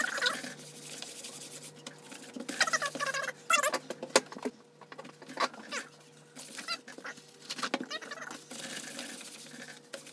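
A rag rubbed and wiped across a damp vinyl door panel: scratchy rubbing with clusters of short squeaks, loudest a few seconds in.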